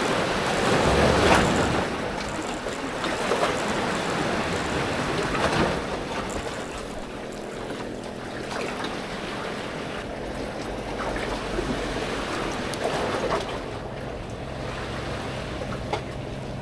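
Sea washing against the concrete breakwater blocks, mixed with wind on the microphone and a few small handling clicks. A low steady hum, like a distant engine, comes in near the end.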